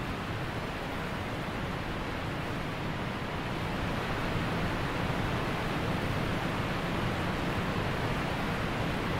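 Steady rushing noise of a wind-like ambience sound effect, with no pitch or rhythm, growing slightly louder about three to four seconds in.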